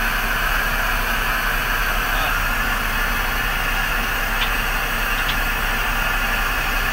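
A steady, even hiss with a low hum underneath, and a couple of faint light ticks a little past the middle.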